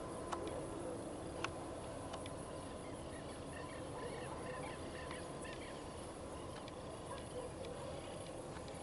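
Steady outdoor background noise with a few light clicks, and a quick run of faint, high chirping animal calls about three to five seconds in.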